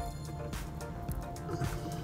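Background music with held tones and a steady beat.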